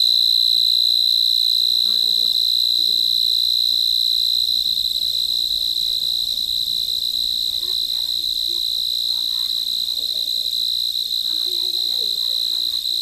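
Crickets chirping in a steady, unbroken high-pitched trill.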